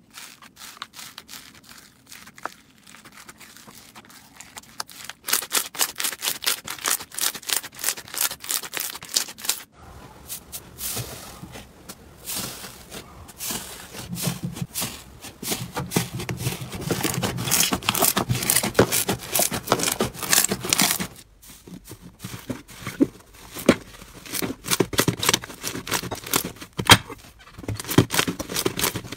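Hands squeezing, pressing and stretching slime across a run of short clips: dense crackling and popping of the slime under the fingers. It is quieter at first, loudest through the middle, and drops briefly where the clips change.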